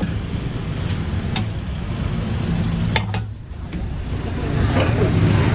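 Steady motor or engine hum, with a few sharp clicks and a whine that rises in pitch near the end.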